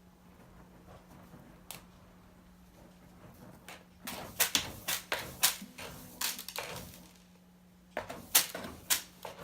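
Cat scratching and raking litter in a litter box: a run of sharp, irregular scratches starting about four seconds in and lasting some three seconds, then another burst near the end.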